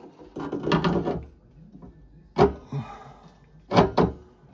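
Metal clunks and knocks from the burner door and fan assembly of a Vaillant ecoTEC Plus boiler being handled and seated back onto the heat exchanger: a short rattle about half a second in, a sharp knock in the middle, then two quick knocks near the end.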